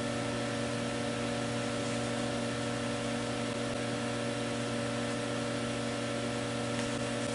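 Steady hum of a running machine with an even, fan-like hiss.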